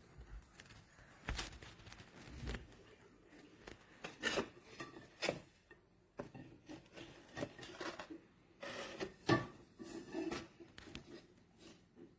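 Scattered clicks, taps and rubbing noises of things being handled, irregular and without any rhythm, with a few sharper knocks.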